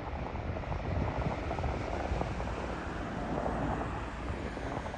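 Distant jet airliner on final approach, a steady engine rumble mixed with wind buffeting the microphone.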